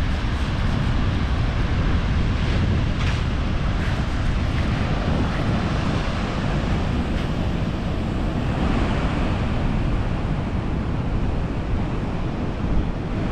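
Atlantic surf washing onto a sandy beach, with a steady low rumble of wind on the microphone.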